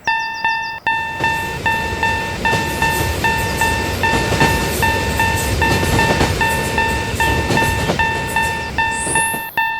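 Japanese-style level-crossing warning bell dinging rapidly and evenly, with a train rumbling past from about a second in until near the end.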